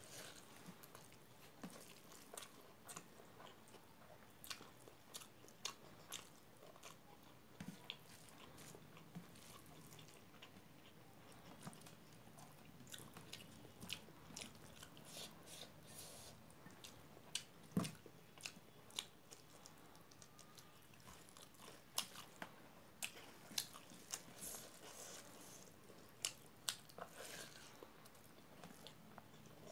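Faint close-up eating sounds: chewing and mouth smacks on hand-eaten rice with eromba, a stream of small irregular clicks, and a few louder clicks a little past halfway.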